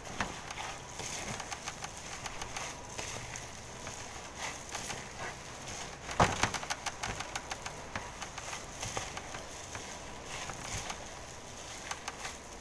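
Hands squeezing and kneading a moist meatloaf mixture in a stainless steel bowl: irregular wet squelching and crackling, with one louder knock about six seconds in.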